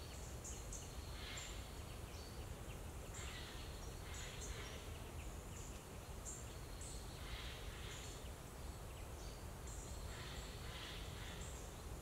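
Faint woodland ambience: scattered short, high bird chirps over a steady low background noise.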